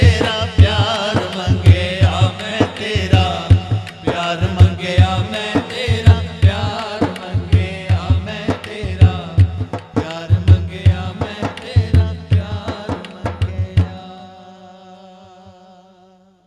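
Men singing a Punjabi naat over a fast, steady drum beat. The drumming and singing stop about fourteen seconds in, and a last held, wavering tone fades out.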